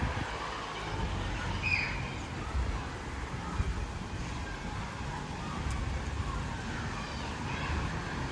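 Rainy city street ambience: a steady hiss of rain and tyres on wet asphalt over a low traffic rumble.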